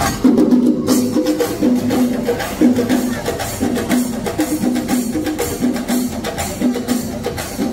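Shingari melam music: fast, dense stick drumming on chenda drums with a short melodic phrase repeating about once a second.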